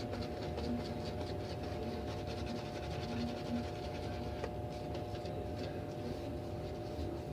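Shaving brush swirling soap lather on a wet face: soft, irregular scratchy swishing strokes as the lather builds thick. A steady background hum runs underneath.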